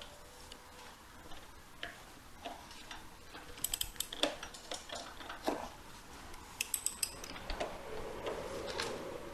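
Socket ratchet wrench on a motorcycle clutch nut, its pawl clicking in two quick runs about four and seven seconds in, with a few single metal clicks between.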